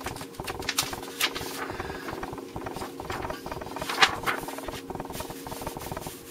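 Sheets of paper being handled and slid across a tabletop: irregular rustling and scraping with a couple of sharper taps, over a faint steady hum.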